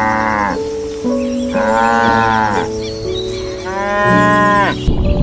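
Cow mooing: the tail of one moo, then two more moos, each about a second long and rising then falling in pitch, over soft background music with sustained notes. Near the end a rough rushing noise takes over.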